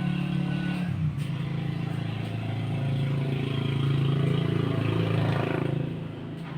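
A vehicle engine running with a steady low hum that shifts in pitch about a second in and fades near the end.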